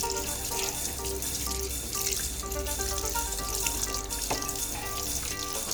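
Water running and splashing over a circuit board being washed, under background music of short, evenly repeated notes.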